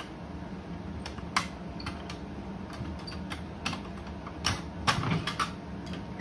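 Scattered sharp clicks and knocks of hands working at an IGT slot machine's front door and latch, bunched together around four to five seconds in, with a steady low hum underneath.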